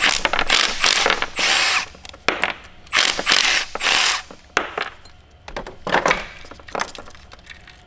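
Ratchet wrench spinning out bolts in about five short, noisy runs over the first four seconds, then scattered clicks and clinks of metal parts that thin out.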